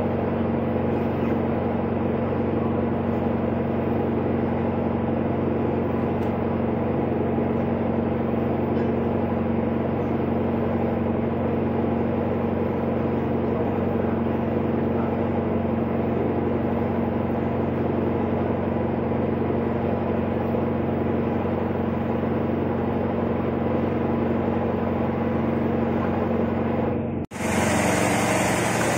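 Steady mechanical hum with a constant low tone, running unchanged like a motor. Near the end it cuts off abruptly and gives way to a different, brighter steady noise.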